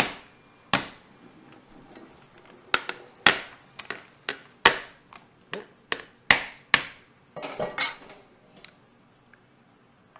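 Chef's knife chopping into a steamed lobster's claw shell on a metal sheet pan: about a dozen sharp knocks at irregular spacing, with a quick run of them near the end.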